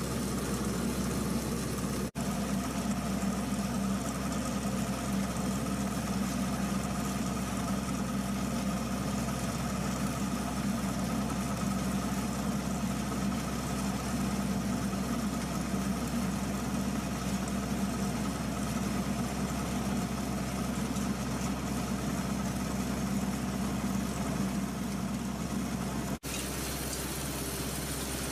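Tractor engine running steadily under load, driving a tractor-mounted rotary ditcher cutting a ditch in a paddy field. The sound drops out for an instant twice, once about two seconds in and again near the end.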